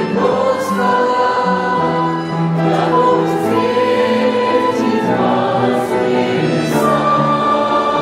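A church choir singing a hymn in sustained multi-part harmony, with the congregation singing along.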